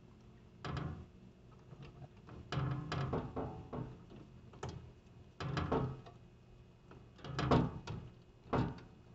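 A string of short, irregularly spaced knocks and clunks from handling the siren control panel and its wiring; no siren tone sounds yet.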